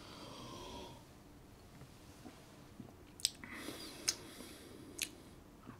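A faint sip from a small glass of whisky, then about three sharp, wet lip smacks and tongue clicks roughly a second apart as it is tasted.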